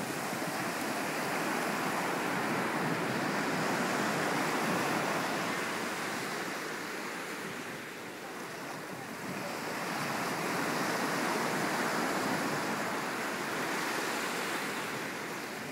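Ocean surf breaking and washing up a sandy beach in a continuous rushing wash. It swells twice, easing about halfway through and again near the end.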